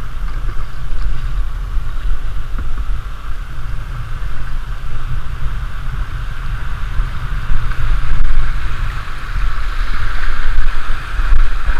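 Whitewater of a shallow, rocky river rapid rushing around a canoe as it runs down, with heavy wind rumble on the microphone. The rush of water grows louder in the second half as the canoe enters the rougher water.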